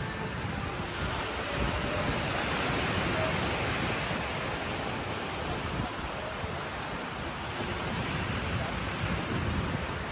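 Pacific Ocean surf: waves breaking and washing on the shore as a steady rushing sound, swelling slightly a second or so in before easing back.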